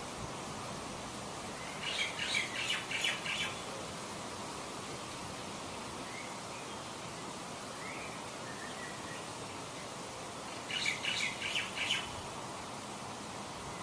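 A songbird singing two short phrases of rapid, high chirping notes, about two seconds in and again near the end, with a few faint single calls between them, over a steady background hiss of outdoor ambience.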